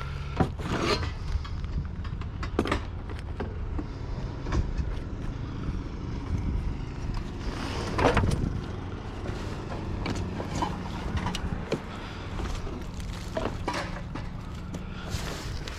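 A car engine running steadily in a low hum, with scattered knocks and clinks from items being handled, the loudest about halfway through.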